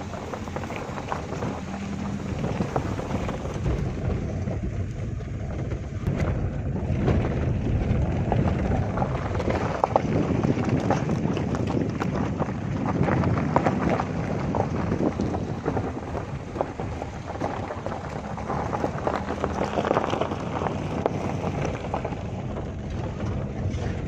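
Car driving over a rough, damaged dirt road, heard inside the cabin: the engine hums steadily under the rumble of the tyres, with many small knocks and rattles from the bumpy surface.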